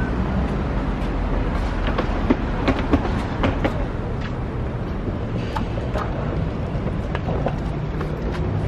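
City street traffic: a steady low rumble of passing vehicles, with a few sharp clicks and knocks about two to three seconds in.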